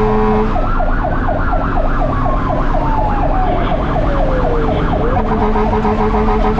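Fire engine sirens heard from inside the cab over the engine: a fast yelp sweeping about five times a second, with a slower wail that falls in pitch over several seconds and then climbs again. A steady low tone sounds briefly at the start and again from about two-thirds of the way through.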